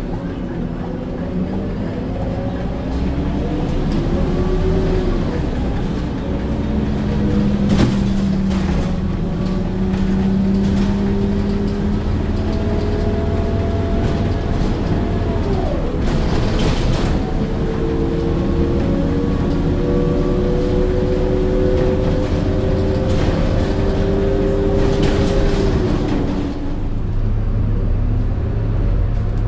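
Scania K230UB bus pulling away, its 9.3-litre diesel running under load. The ZF Ecomat 6HP504C automatic gearbox gives a high-pitched whine that rises with speed and drops back at each gear change, about three times, with a few short knocks along the way.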